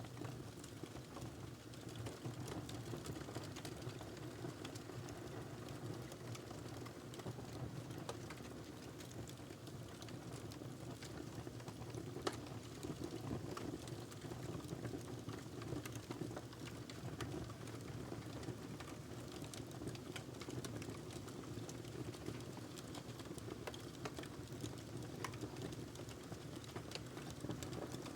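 Wood fire burning in a fireplace: a steady low rush of flames with frequent irregular crackles and pops, one sharper pop about twelve seconds in.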